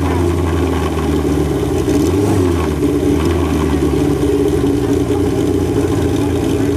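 Kawasaki drag bike's engine running on a dynamometer, ticking over steadily with a brief throttle blip about two seconds in.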